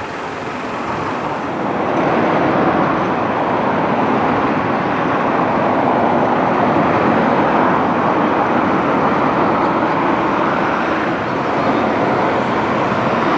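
Steady road traffic noise, a continuous rush of passing vehicles that swells about two seconds in and then holds.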